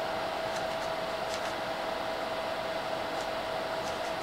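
Toolcon × CODE26 mini electric fan heater running: its fan blows a steady rush of air with a constant humming tone underneath.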